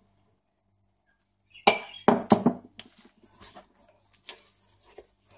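Kitchenware clinking: something strikes the mixing bowl sharply three times, the first the loudest, then softer taps and scraping follow as flour is added to the dough.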